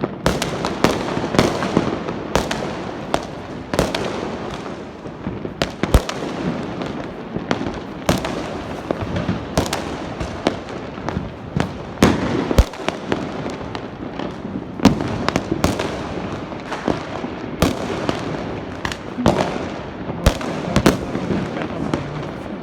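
Diwali fireworks and firecrackers going off all around: many sharp bangs at irregular intervals, several a second, over a continuous background of crackling and distant popping.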